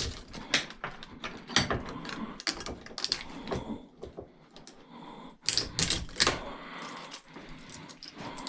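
Irregular clicks and light metallic knocks of microwave parts and hand tools being handled during a teardown, with a few louder knocks about two thirds of the way through.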